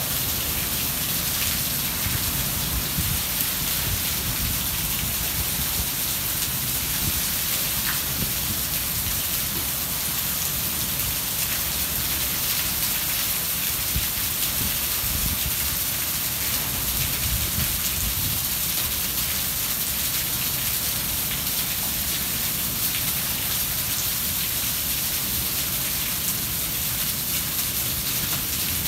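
Steady rain pouring down in a thunderstorm, with a constant low rumble underneath.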